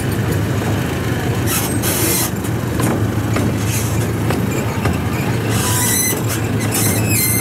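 Theme-park safari train running along its track: a steady low engine hum and rumble, with two brief hisses. Near the end a high, steady squeal starts.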